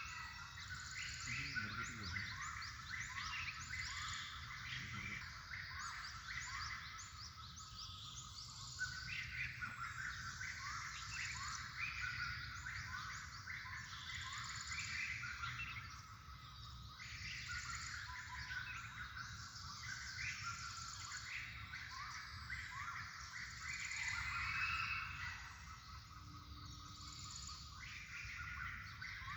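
A flock of small birds chirping all at once: a dense, continuous chorus of short, quick, rising chirps overlapping without a break, over a faint low rumble.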